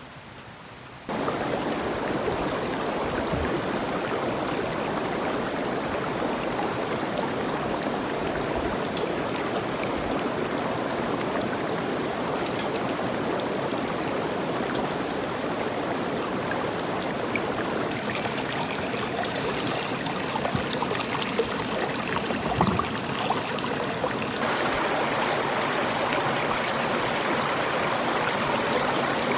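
Shallow mountain stream running over rocks: a steady rush of water that starts abruptly about a second in. A few brief louder sounds come a little past the middle, and the water sound gets slightly fuller about five seconds before the end.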